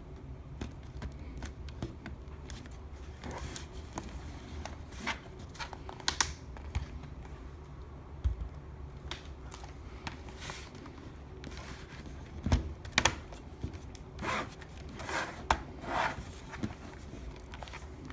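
Plastic laptop case being handled and pressed together: scattered clicks, taps and short scraping rubs as the housing is pushed to seat, several louder ones in the second half.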